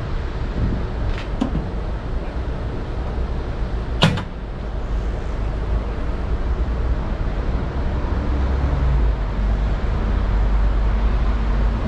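Steady rumble of city street traffic, including a bus, growing louder in the second half. A couple of light clicks and one sharp plastic clack about four seconds in come from the DC fast-charger connector being unlatched and handled.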